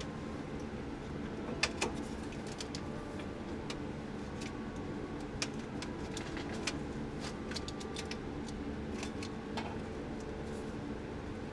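Scattered sharp metallic clicks and clinks of hand tools and loose exhaust parts as the cast-iron exhaust manifold is worked free of the Y-pipe, over a steady low hum.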